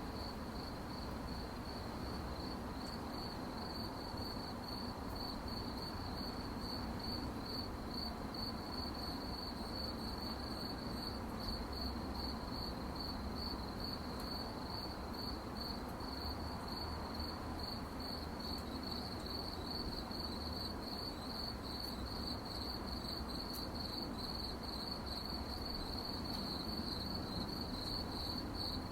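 Crickets chirping at night in a steady, fast pulsing trill that continues without a break, over a low, even background hum.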